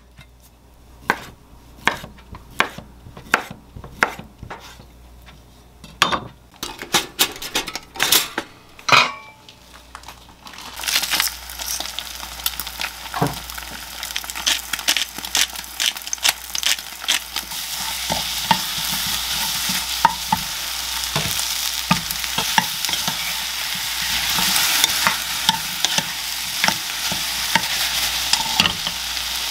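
A kitchen knife knocking on a wooden cutting board several times as chicken-breast sausages are sliced. Then eggs and sliced sausage sizzle in a frying pan with a spatula scraping and clicking as they are stirred. The sizzle grows louder from about halfway through, as tomato is stir-fried in.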